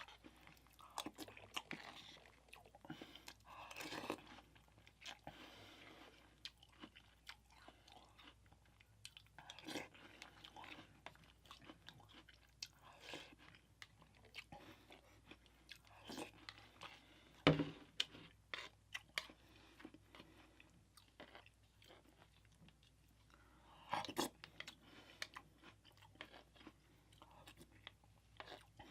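Faint chewing and crunching of mini vanilla wafers in milk, coming in irregular bursts, with one sharper knock a little past the middle.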